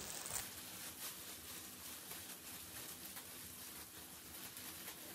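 Faint rustling of disposable plastic gloves and hair as the hair is handled and sectioned, over quiet room tone.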